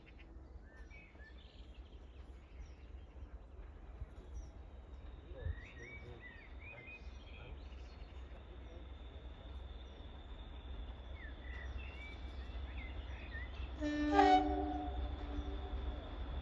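Diesel locomotive approaching, its engine a low rumble that slowly grows louder while birds sing. Near the end it gives one short blast on its horn.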